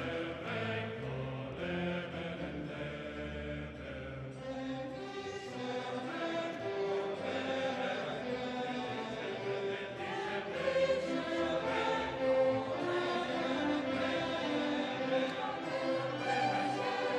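Slow classical-style background music with choir and orchestra, held notes changing about once a second.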